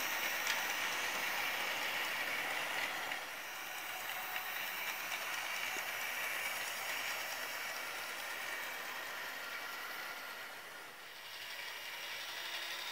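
OO/HO gauge model train running on sectional track: the steady whirr of its small electric motor and its wheels running over the rails. It is loudest in the first few seconds as the engine passes close by, dips about eleven seconds in, then rises again as the train comes back round near the end.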